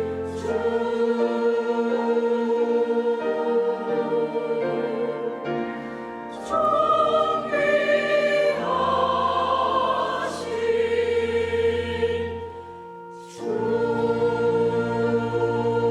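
Church choir singing an anthem with instrumental accompaniment in sustained chords. The music dips briefly about thirteen seconds in, then settles on a long held chord.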